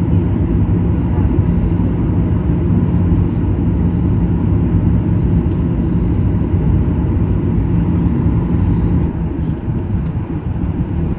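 Steady cabin noise inside a Boeing 737-800 in flight: the drone of its CFM56-7B turbofan engines and the airflow over the fuselage, with a low hum that eases slightly near the end.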